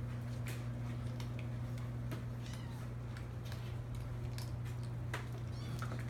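Kittens meowing while they play, with short clicks and scuffles of claws on a wooden floor, over a steady low hum.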